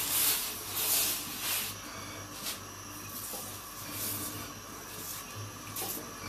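Cloth rubbing around the inside of a hot steel wok, with a hiss of leftover water steaming off the metal. A few quick wiping strokes come in the first two seconds, then it turns fainter with a single stroke near the end.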